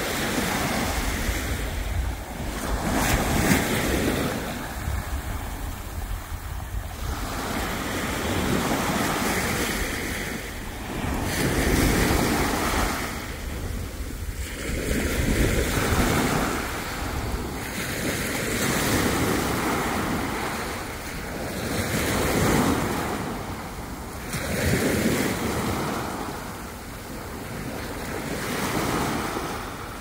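Small waves breaking and washing up a sandy beach, swelling and fading every few seconds, with wind buffeting the microphone.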